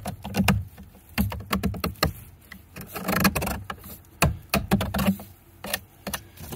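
Utility knife blade scraping and shaving the inside of a white PVC glue-in pipe fitting, an irregular run of sharp scrapes and clicks. The blade is cleaning rough leftover pipe out of the socket so a new pipe can be pushed in further.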